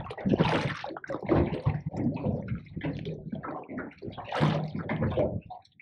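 Water sloshing and slapping against the hull of a small boat in irregular surges, with two sharper splashes about half a second in and about four and a half seconds in.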